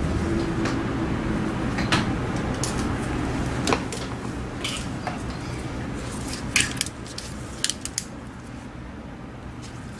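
Scattered light clicks and clinks of small plastic and metal parts of a disassembled wireless mouse being handled, over a steady low hum, with a cluster of clicks shortly before the end.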